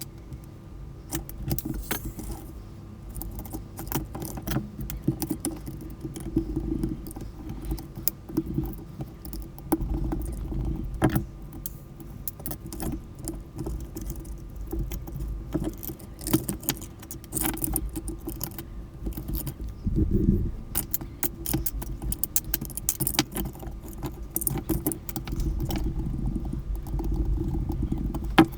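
Hands taking apart a Sanyo cordless telephone: irregular clicks, clinks and rattles of its plastic casing, small parts and tools, over a low handling rumble.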